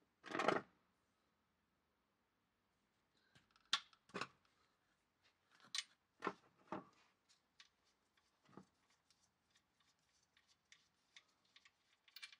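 A short burst of noise near the start, then scattered sharp clicks and knocks of hand tools and metal parts being handled, with lighter quick ticking near the end.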